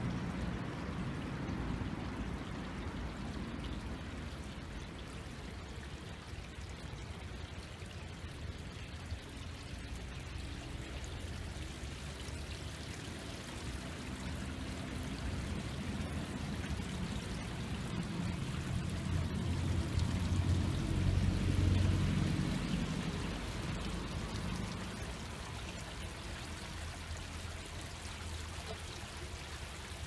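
Shallow brook running over a low step in its bed, a steady trickling and splashing of water. A low rumble swells and fades about two-thirds of the way through.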